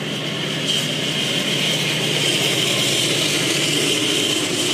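Freight train rolling past: a steady rumble and rail noise from the cars, with no horn sounding.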